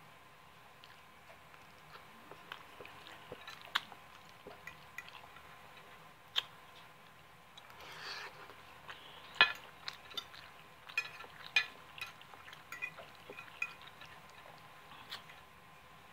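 Metal fork clinking and scraping on a plate in scattered light clicks, with faint chewing while eating creamy egg noodles.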